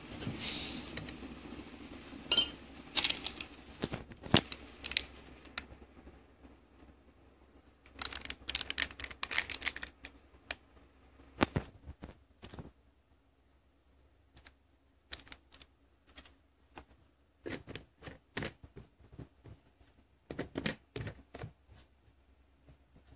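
Scattered light clicks, taps and crinkles from hands handling a plastic drink sachet, a powder jar, and a spoon in a ceramic mug, coming in short clusters with the densest run about eight to ten seconds in.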